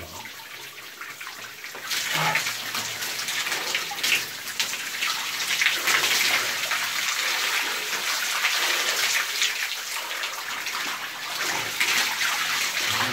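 Water poured from a plastic tub over a person's head and body, splashing onto a tiled shower floor. A softer hiss of water for the first two seconds, then a louder, steady pour and splash that keeps going.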